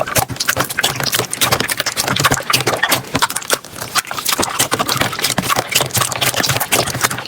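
Slime being squished and pressed by hand, giving a dense, rapid run of sticky pops and crackles.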